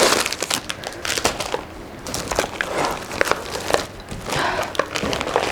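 Plastic snack packets crinkling and rustling as they are handled, with many small clicks and crackles.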